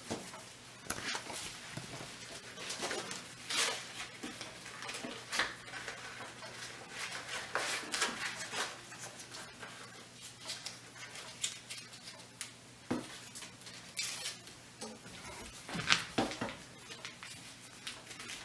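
Dry corn husk crinkling and crackling in the hands as it is folded and wrapped around a roll of dough, in irregular rustles with a few sharper crackles, over a faint steady hum.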